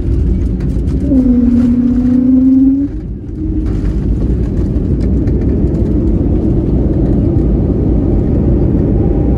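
Jet airliner cabin noise on the landing roll along a wet runway: a loud, steady rumble of engines and wheels. A humming tone sounds over it from about one to three seconds in.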